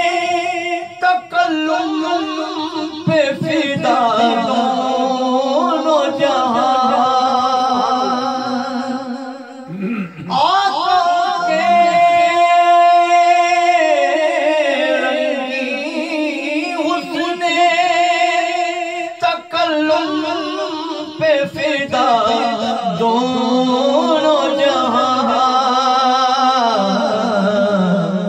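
A man singing an Urdu devotional naat unaccompanied, in long held notes with a wavering, ornamented melody. There is a brief pause for breath about ten seconds in.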